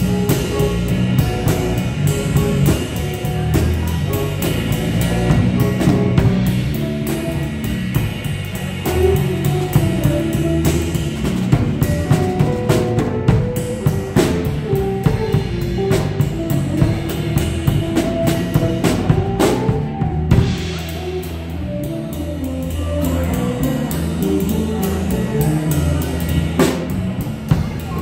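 Live jazz from a Noble & Cooley drum kit and an electric bass, the drums to the fore with busy cymbal and drum strikes over moving bass notes.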